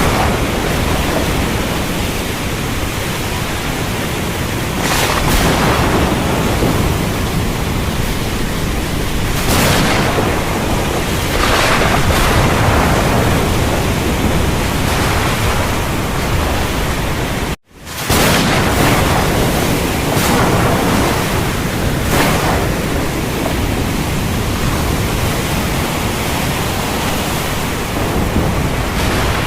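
Heavy, steady rain with deep rumbles of thunder underneath, swelling louder several times. The sound cuts out to silence for a split second a little past halfway, then resumes.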